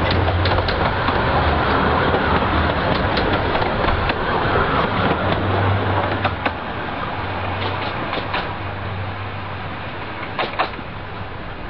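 A 15-inch-gauge Romney, Hythe & Dymchurch Railway train running and moving away, its steady rumble and low hum slowly fading, with scattered sharp clicks from the wheels and track.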